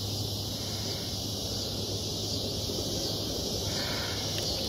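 Steady, high-pitched buzzing chorus of insects, with a low steady hum underneath.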